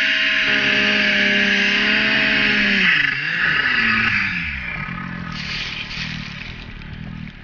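Snowmobile engine running at high, steady revs under a loud hiss. About three seconds in the revs drop and waver, then settle into a lower, pulsing run.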